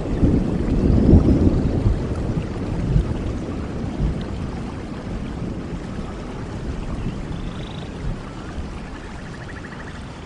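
Rain falling steadily with a low thunder rumble that fades away over the first few seconds. A few faint chirps near the end.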